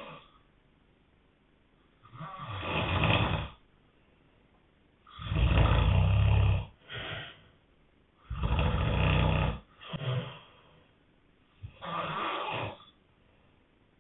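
Heavy snoring: four long snores about three seconds apart, two of them followed straight away by a shorter second sound.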